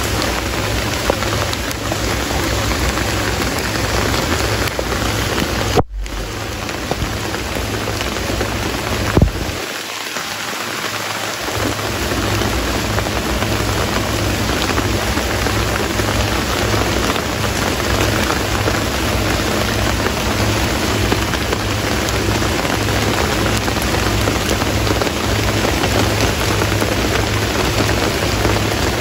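Steady rain falling, a dense, even hiss throughout. The sound breaks off for an instant about six seconds in, and there is one short knock about nine seconds in.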